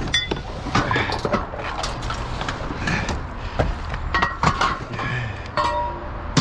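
Irregular knocks and clinks of scrap metal and debris being handled and shifted, with a brief metallic ring about five and a half seconds in.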